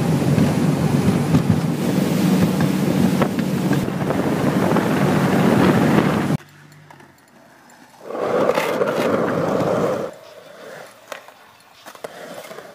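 Speedboat running at speed: a steady engine drone under heavy wind and water rush on the microphone, which cuts off abruptly about six seconds in. A shorter, quieter rough noise follows about eight seconds in.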